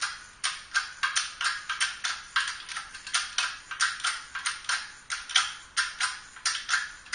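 A quick, uneven series of light, sharp taps, about four to five a second.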